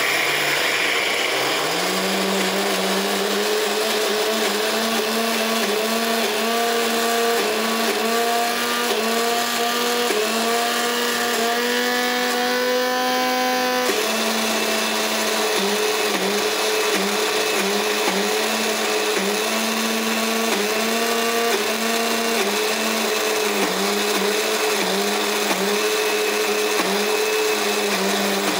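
Electric mixer grinder grinding soaked dal coarsely in its jar: a loud motor whine that spins up in the first couple of seconds, then holds with a wavering pitch as the dal churns. About halfway through the pitch climbs slightly, then drops back abruptly.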